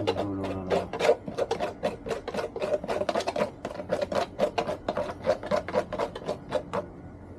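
Rapid back-and-forth abrasive hand strokes, filing or sanding by hand, about five strokes a second, stopping shortly before the end.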